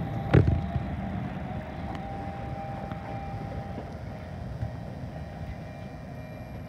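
Fukui Railway tram running on the rails: a low rumble with a steady motor whine that slowly fades as it draws away, after a single sharp knock about half a second in.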